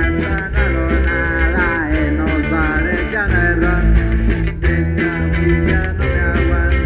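Punk rock band playing an instrumental passage: electric guitar with a lead line of bent notes over bass and drums, cymbals struck in a steady beat about three times a second.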